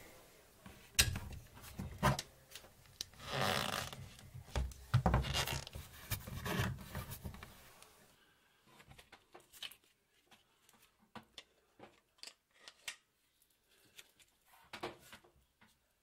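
Hands handling a Parkside PMFW 310 C2 oscillating multitool on a wooden board while its delta sanding pad is fitted, with the motor off. There are knocks, rubbing and scraping for the first several seconds, then light, scattered clicks.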